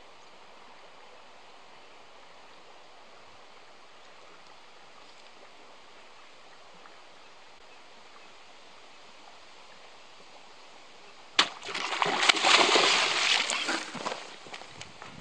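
A Murray cod striking a topwater lure: a sudden loud splash about eleven seconds in, then about three seconds of thrashing and splashing in the water that fades toward the end.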